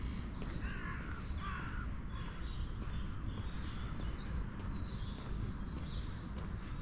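Birds calling: two harsh, crow-like calls in the first two seconds, with thin chirps of smaller birds scattered throughout. A steady low rumble runs underneath.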